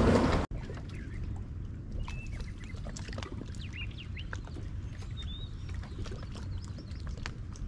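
Loud wind noise on the microphone for about the first half second, cut off abruptly. After that, birds call in short chirps over a low steady rumble, with scattered light clicks.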